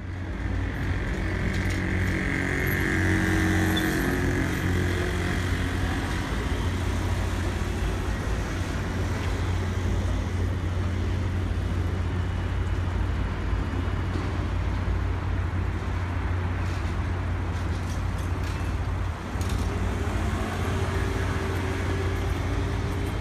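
A docked ferry's engine running with a steady low hum, under the bustle of a crowd of cyclists and pedestrians coming off it, with a few scattered clicks and rattles.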